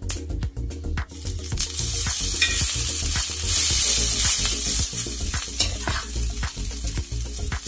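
Bread and gram-flour batter with chopped vegetables sizzling in hot oil and mustard seeds on a tawa, stirred and scraped with a metal spatula. The sizzle starts about a second in as the mixture goes onto the pan and is loudest around the middle, with clicks of the spatula on the pan.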